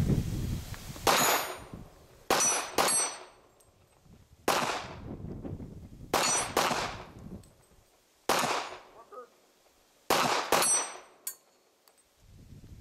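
About ten handgun shots, some in quick pairs, each followed by the clang and high ringing of a steel target plate being hit.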